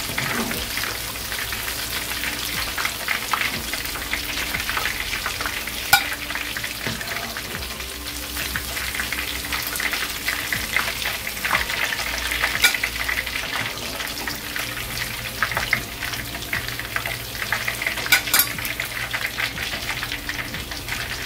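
Batter-coated fish pakoras deep-frying in hot oil, a steady sizzle with dense crackling. Three sharp clicks, about a third, three fifths and six sevenths of the way through, come from the metal slotted spoon knocking the pan as fried pieces are lifted out.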